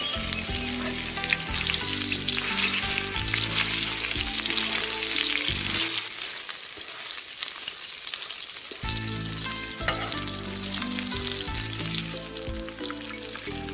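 Braised donkey intestine sizzling steadily in hot oil on a flat iron griddle, with a few sharp clicks of a metal spatula pressing and turning it.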